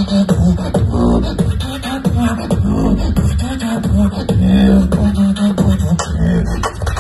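A beatboxer performing through a venue PA system: held low bass notes under a steady run of sharp kick and snare hits.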